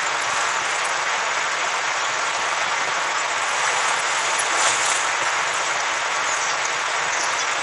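Steady rushing wind of a snowstorm, with a brief brighter hiss about five seconds in.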